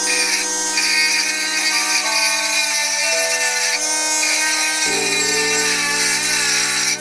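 Small homemade 12 V motor grinder running and grinding, a steady hiss, over background music whose held chords change about five seconds in.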